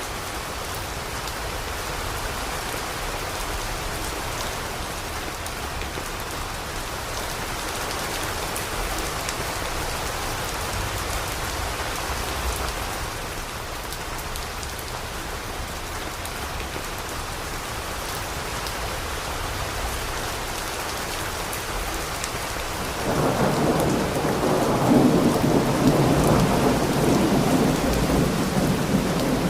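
Steady rain falling. About three-quarters of the way through, a roll of thunder starts suddenly and rumbles on, louder than the rain.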